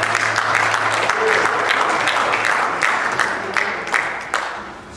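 Congregation applauding, many hands clapping at once, with the clapping thinning out and dying away near the end.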